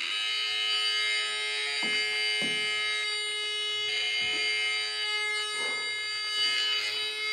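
Electronic music from a body-worn sensor instrument: a dense, buzzing chord of steady synthetic tones held throughout, with a few short low thuds about two, two and a half, four and five and a half seconds in.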